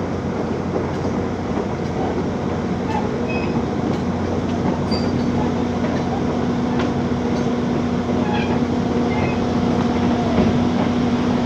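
A backhoe's diesel engine running steadily under load while the machine travels. A steady hum comes in about a second in and the sound grows slowly louder, with scattered light squeaks and clicks over the rumble.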